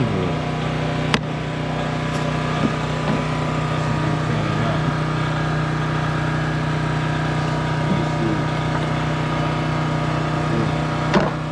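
A motor-driven machine runs with a steady, even hum, with a couple of sharp clicks about a second in and near the end.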